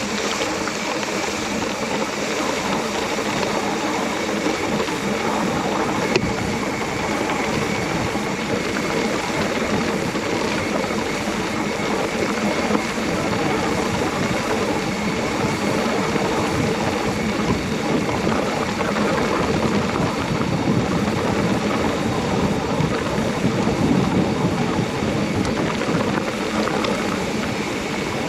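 Mountain bike rolling over a rough, dry chalk track: a steady rushing noise of tyres on the ground and air past the bike, with two sharp knocks along the way.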